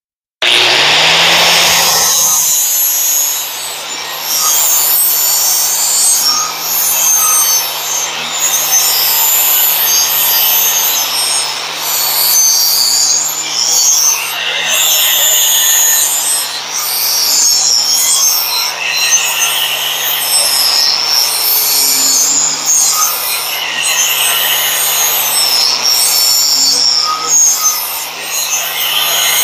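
Angle grinder with a 60-grit flap disc starting up about half a second in and spinning up to a steady whine. It then grinds the edge of a steel lawn mower blade held in a sharpening jig, and the grinding noise rises and falls as the disc is worked along the edge.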